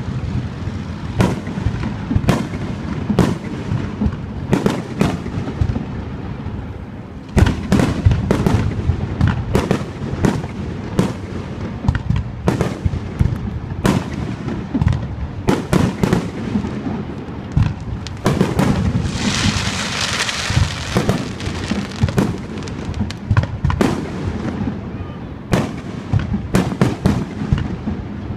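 Aerial fireworks display: shells bursting in a steady run of sharp bangs, which thicken into a denser barrage about a quarter of the way in. About two-thirds in there is a stretch of hiss among the bangs.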